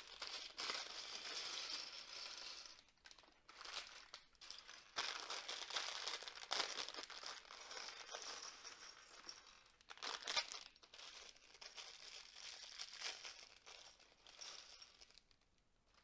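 Plastic bags of LEGO pieces being handled, crinkling in irregular spells with short pauses.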